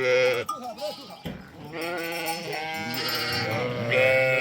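A flock of sheep bleating, one call after another with some overlapping; the loudest calls come at the start and near the end.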